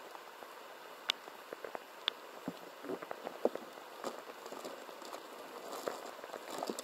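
Steady patter of rain, with scattered sharp clicks and taps of hands rummaging in a plastic tackle box.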